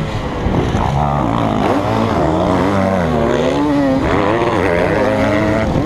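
KTM 250 SX two-stroke motocross engine revving hard and dropping back again and again as the throttle is worked, its pitch rising and falling every second or so. Another dirt bike's engine runs close by.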